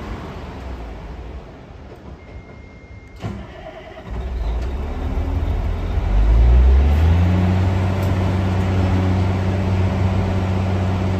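Caterpillar 345C L excavator's diesel engine being started. After a short beep and a click, the engine catches about four seconds in, rises in pitch and loudness around six seconds, and settles into a steady run.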